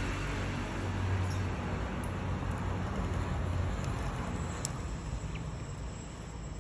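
Steady low hum and rumble of background noise, like distant traffic, with a few faint clicks.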